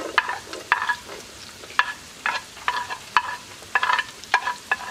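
A wooden spoon scraping diced vegetables off a glazed ceramic plate into a pan: about ten quick scrapes and knocks, the plate ringing briefly after each stroke.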